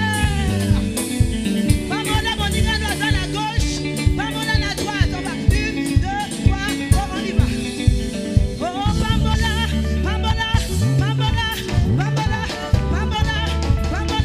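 Live worship band playing an upbeat song, with a strong bass line and a steady drum beat under a singing voice.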